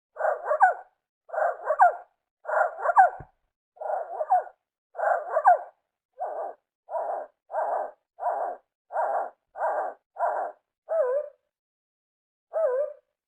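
A reconstructed call of an extinct bird-like dinosaur, made from pitch-lowered songbird recordings: a rapid series of short, bark-like calls, about fourteen in all. The calls come in quick succession, and the last few have a wavering pitch with a longer pause before the final one.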